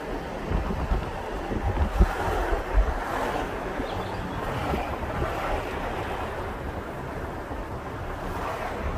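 Wind buffeting the microphone in uneven low gusts, strongest in the first three seconds, over a steady rushing outdoor noise.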